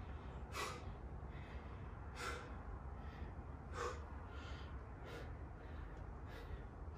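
A man breathing hard during a set of burpees: a sharp breath roughly every second and a half, with softer breaths in between.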